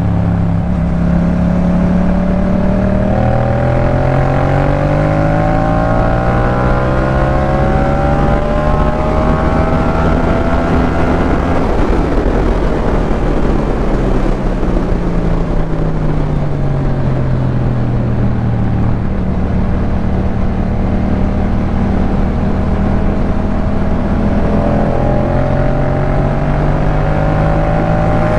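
Yamaha MT-07 parallel-twin engine running through a Jeskap K4 full aftermarket exhaust under way. The engine note climbs gradually for about ten seconds, then falls back over several seconds, holds steady, and starts climbing again near the end.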